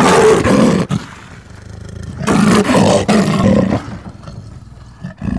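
Animal-roar sound effect on an end-screen animation: two long, loud roars, the first right at the start and the second a little over two seconds in, with a quieter rumble between and after.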